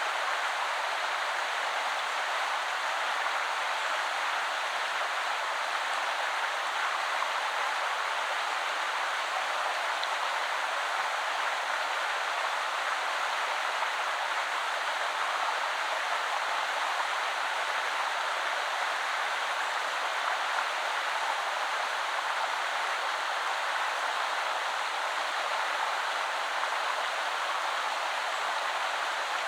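River water flowing and splashing over stones in a steady, even rush.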